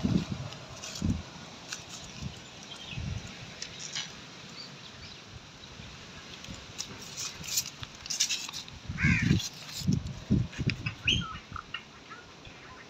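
Birds calling now and then, with short chirps that cluster in the second half, over several dull low thumps.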